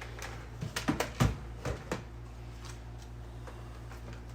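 Light clicks and knocks of a plastic replica helmet part being handled and refitted, several in the first two seconds, then only a low steady hum.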